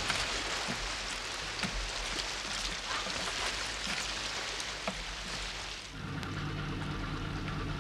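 Shallow seawater splashing and churning as people wade and shove a wooden boat through the surf, with a few small knocks. About six seconds in, this gives way to a low, steady hum.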